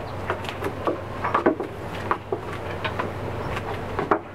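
Footsteps in flip-flops on wooden porch decking: a string of irregular light slaps and knocks, some quicker than others, thinning out near the end.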